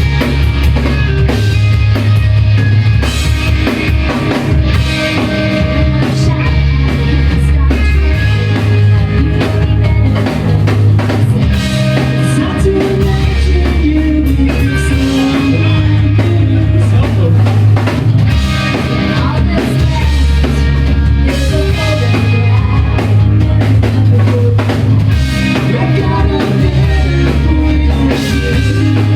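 Rock band playing live: drum kit, guitar and a heavy bass line, loud and continuous.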